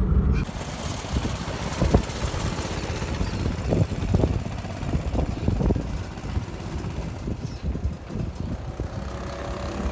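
Go-kart engine running on a track at a distance, heard under a steady rushing noise with scattered low thumps; the kart's engine note grows clearer near the end as it draws nearer.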